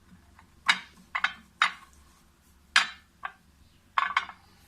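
A spoon scraping and clinking against a dish in a series of short, irregular strokes.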